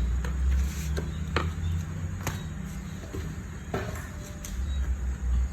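Four or five light knocks and clicks of hard objects being handled, spaced irregularly over a low rumble.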